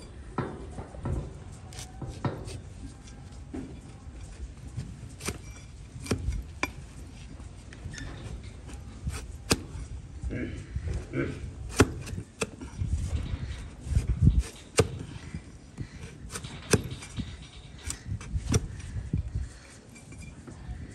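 A wide flat hoof-paring blade pushed down through a donkey's hoof horn on a wooden block: a run of sharp crunching cuts and clicks, irregularly spaced, as slices of sole and wall are sheared away during a hoof trim.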